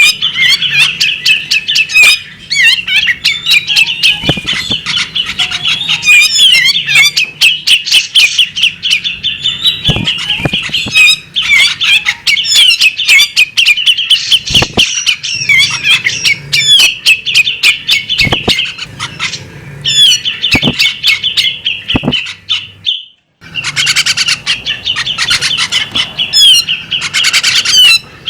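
Female magpie robin calling in a fast, nearly unbroken run of high chattering notes with sharp clicks mixed in, pausing for about half a second near 23 seconds in.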